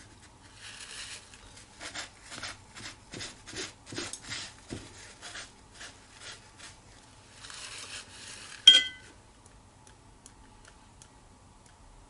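Watercolour brushwork: soft scrubbing and tapping strokes, about two a second for a few seconds. Then a single sharp clink that rings briefly, hard tableware struck by a brush.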